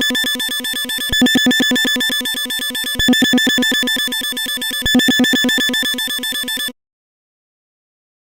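Synthetic sonar sound effect: a fast-pulsing, alarm-like electronic tone of about ten pulses a second, swelling louder about every two seconds. It cuts off suddenly near the end.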